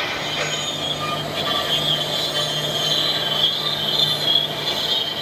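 4-axis CNC router with a rotary attachment carving wood: the spindle gives a steady, high-pitched squealing whine over a steady low hum, with the rasp of the cut underneath.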